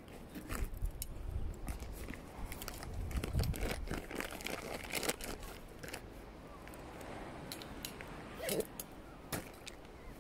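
Irregular crunching clicks and rustles of footsteps and a hand-held phone being moved, over a low rumble.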